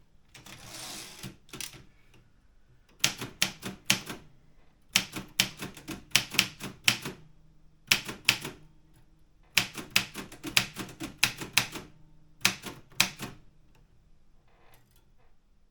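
Optima Elite 3 typewriter being typed on: quick runs of sharp keystrokes in bursts of several strikes, with short pauses between runs. A brief rushing sound comes about half a second in.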